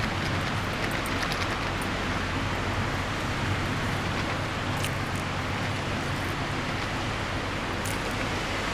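Steady wind noise from strong winds, with a couple of faint clicks about halfway through and near the end.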